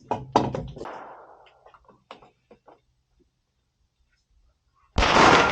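A single pistol shot about five seconds in: a sharp crack with an echo that fades over the next couple of seconds. Before it come a few lighter clicks and knocks in the first second, then a stretch of near quiet.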